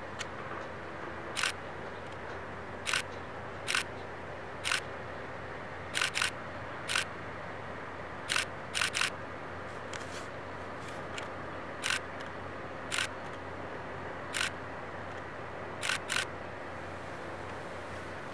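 Camera shutters clicking, about fifteen single shots and quick pairs at irregular intervals, over a steady background drone.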